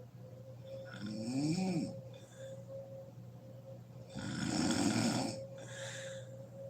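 Woman snoring in her sleep. A shorter snore with a pitch that rises and falls comes about a second in, then a louder, rougher snore around four seconds in trails into a softer breath. A steady hum runs underneath.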